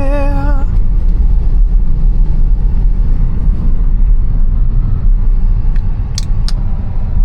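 Steady low rumble of a Tesla's tyres and road noise while it drives and slides on a snowy road, with two short clicks about six seconds in.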